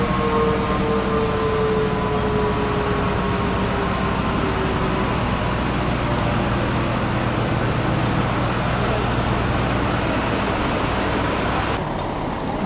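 FDNY fire trucks' diesel engines idling with a steady low hum, while a siren slowly winds down in pitch and fades out over the first five seconds or so. Near the end the sound cuts to quieter street noise.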